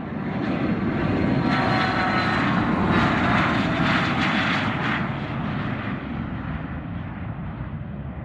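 Dassault Falcon 900EX business jet's three turbofan engines at takeoff power as the jet passes. The noise swells to a peak with a faint high whine over it, then fades as it moves away.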